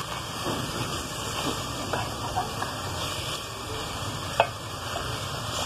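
A long spoon stirring purslane leaves and chopped tomatoes in a metal pot, the vegetables rustling and scraping over a steady sizzle. The spoon knocks sharply against the pot once about four seconds in.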